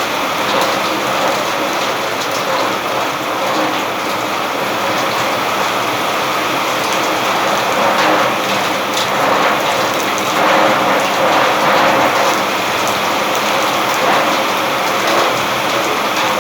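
Steady rain falling, a dense even hiss with single nearby drops standing out now and then.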